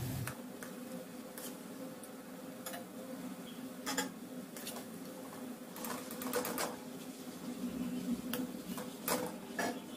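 Hot oil crackling and popping around gulab jamun dough balls deep-frying in a kadai: irregular sharp pops over a steady low hum.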